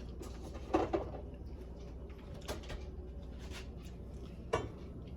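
A few light clinks and knocks of tableware, sparse and separate, the clearest about a second in and another near the end, over a steady low hum.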